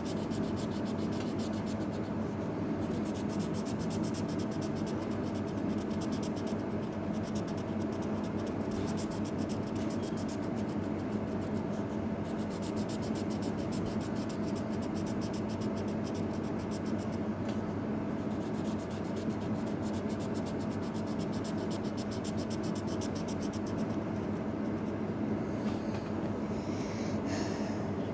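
Felt-tip marker scratching across paper in many quick short strokes as a drawing is coloured in, a few louder strokes near the end, over a steady low hum.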